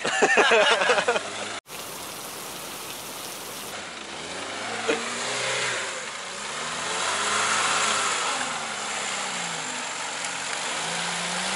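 A few words of speech at the start, then a 4x4's engine running and revving up and down several times, loudest about halfway through.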